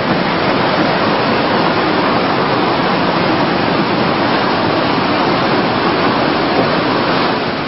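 Whitewater of Class 4 rapids rushing around a boat, a loud, steady wash of water noise with no letup.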